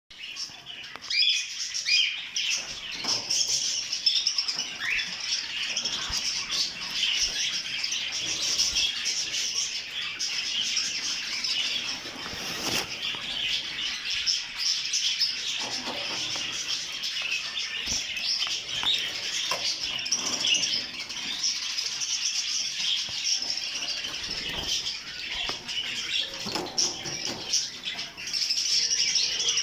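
A group of canaries chirping and twittering continuously, many birds calling at once, with scattered short clicks.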